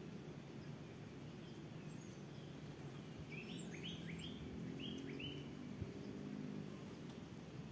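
A bird gives a quick run of five or six short rising chirps about three seconds in, over a steady low outdoor background rumble.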